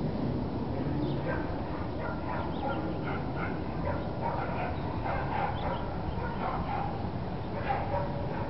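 Dogs barking and yipping in short, irregular calls over a steady low rumble.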